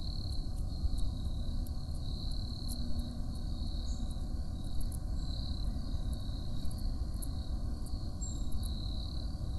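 A steady high-pitched insect trill, cricket-like, over a continuous low rumble, with a few faint high ticks scattered through.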